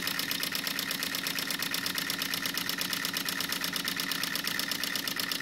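A homemade pulse motor, a disc set with magnets and spun by a pulsed actuator coil, running steadily. It makes a fast, even ticking of many beats a second over a steady hum.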